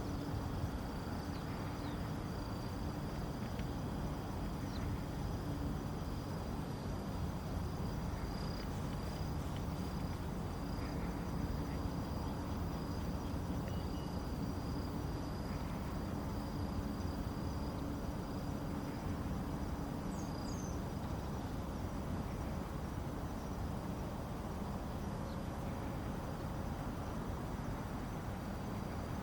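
Steady low outdoor rumble with a continuous high-pitched insect trill over it, and a couple of brief chirps about two-thirds of the way through.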